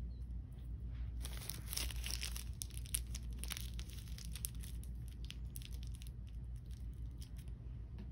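Blind-bag packaging crinkling and tearing in dense crackles, busiest from about one to five seconds in and thinning out near the end, over a steady low hum.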